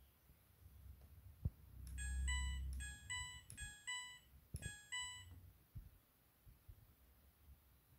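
Midea front-loading washing machine's control panel beeping: a quick run of electronic beep notes at several pitches, about two seconds in, with a low hum and a few sharp clicks around them.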